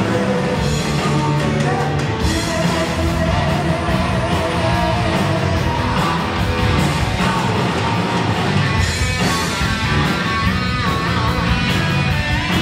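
Three-piece heavy metal band playing live: electric guitar, electric bass and drum kit.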